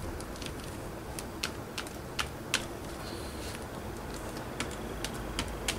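Light, irregular clicks and taps of a plastic card against a gel printing plate as white paint is laid on in lines, about a dozen sharp ticks spread unevenly.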